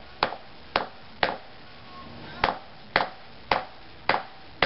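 Rubber mallet tapping a block of wood laid over a wheel speed sensor, pressing the sensor down onto a wheel hub. About eight light taps, roughly two a second, with a short pause after the third.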